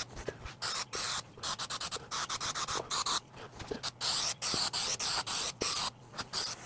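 Aerosol can of spray adhesive hissing in many short bursts, one after another with brief gaps.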